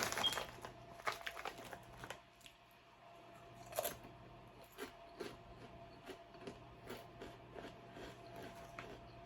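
Crisp potato chips being bitten and chewed: a few sharp crunches, then steady chewing crunches about twice a second. A faint steady hum runs underneath.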